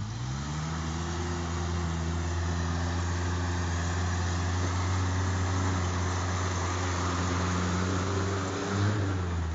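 Off-road 4x4 pickup's engine revving up in the first second and then held at steady high revs under load as the truck climbs out of a rutted dirt gully, with a brief dip near the end.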